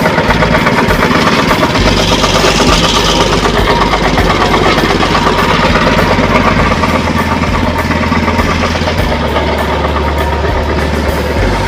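Shark 6.5 HP single-cylinder petrol engine running steadily, driving a wet coffee pulping machine, with a brief rise of hiss about two seconds in.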